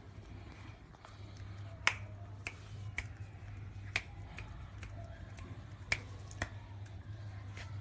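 Sharp, short clicks at irregular intervals, about a dozen, loudest about two, four and six seconds in, over a low steady hum.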